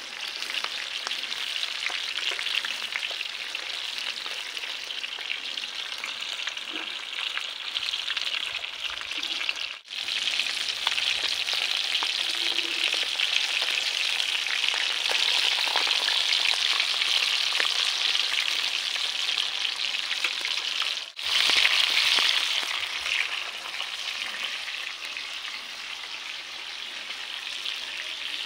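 Oil sizzling on a flat iron tawa, then pomfret fish frying in it: a steady crackling sizzle that grows louder about ten seconds in. The sound breaks off briefly twice.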